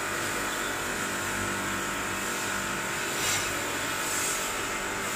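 Steady mechanical hum with an even whir, holding the same level throughout.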